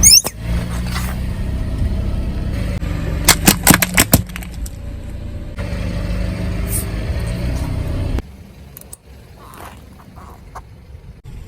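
Car engine running low and steady as the car rolls over objects, with a sharp crack right at the start and a quick cluster of crunching cracks about three to four seconds in. The engine sound drops away after about eight seconds, leaving only faint noises.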